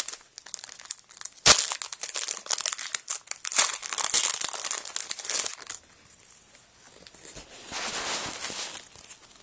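Foil wrapper of a trading-card pack crinkling and tearing open, with a sharp click about one and a half seconds in. The crinkling pauses briefly, then starts again near the end.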